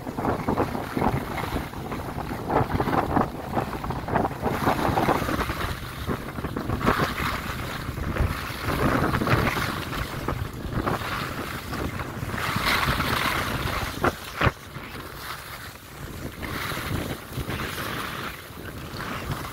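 Wind buffeting the microphone while skiing downhill, mixed with the hiss and scrape of skis carving over packed snow, swelling and fading with each turn. Two sharp clicks stand out about fourteen seconds in.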